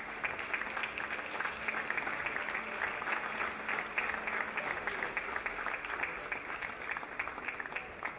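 Applause from a crowd in a sports hall: many hands clapping steadily, dying away at the very end.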